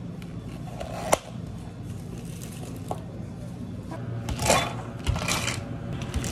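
Ice scoop digging into an ice bin with two rattling scrapes, then ice cubes dropping into a plastic cup near the end. Before that, a sharp click about a second in, over a steady low hum of cafe equipment.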